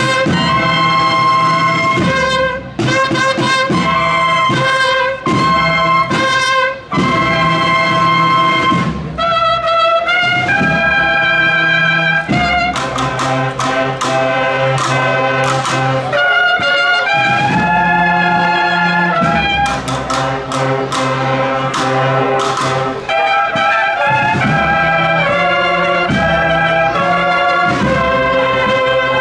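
Brass band playing a processional march for a Palm Sunday procession.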